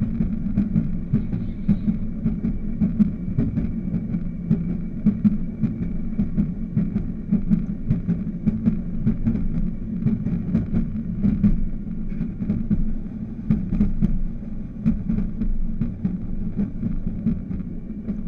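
Railroad motorcar (speeder) running steadily along the track, its small engine giving a steady drone, with frequent sharp clicks from the wheels on the rails.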